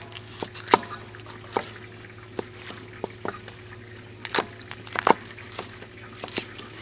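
Two cleavers chopping chilies on a wooden chopping block: irregular sharp knocks of the blades striking the wood, about two or three a second, some louder than others, over a faint steady hum.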